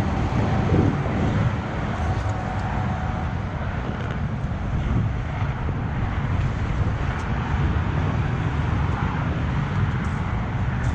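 Loud, steady rush of freeway traffic.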